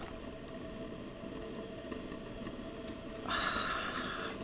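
Low steady background hum with a faint constant tone. About three seconds in comes a soft, one-second rustling hiss of floury hands being rubbed together to brush off the flour.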